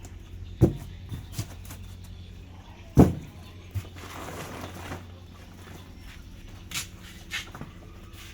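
Two loud dull thumps, about 0.6 s and 3 s in, then lighter knocks and a short rustling noise, over a low steady hum.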